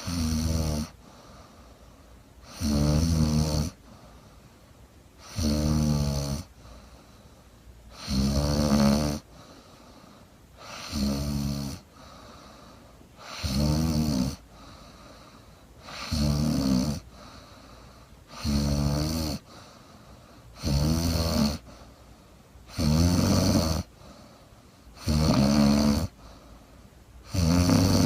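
A woman snoring in her sleep. Each snore is a raspy, rattling sound lasting about a second, repeating steadily about every two and a half seconds with quiet breathing in between.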